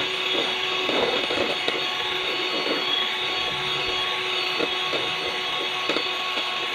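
Electric hand mixer running steadily, its beaters whipping a white mixture in a stainless steel bowl until stiff.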